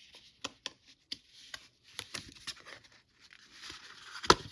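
Plastic and metal parts of a desktop computer case clicking and scraping as a stuck component is worked loose by hand. A string of sharp clicks, the loudest near the end, over scraping and rubbing.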